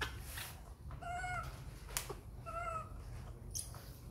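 Baby macaque giving two short high-pitched calls, about a second in and again a second and a half later: a hungry infant begging for its milk. A few light clicks from a spoon stirring milk in a plastic cup.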